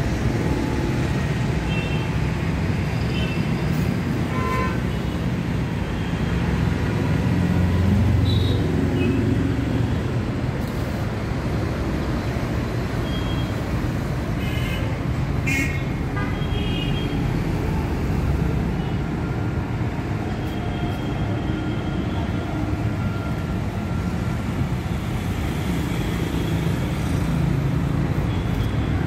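Steady road traffic noise, with a few short vehicle horn toots.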